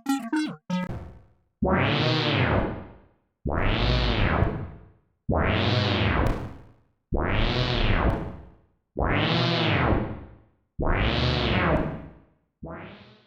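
A browser-based Roland TB-303 bass synth emulator playing a slow repeating note, about one every two seconds. Each note starts suddenly, its tone brightening and then darkening again as it fades. A shorter note comes near the end.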